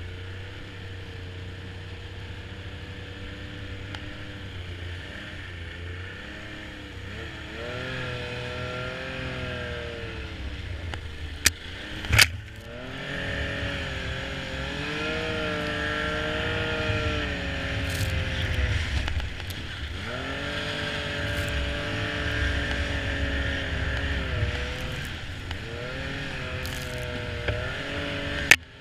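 Snowmobile engine running, its pitch rising and falling again and again as the throttle is opened and eased. There are a couple of sharp knocks about twelve seconds in and another near the end.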